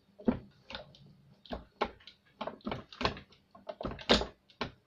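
Hand-pumped hydraulic crimping tool being worked by its pump lever: a run of sharp clacks, some coming in close pairs, as the strokes build pressure to close the crimping dies.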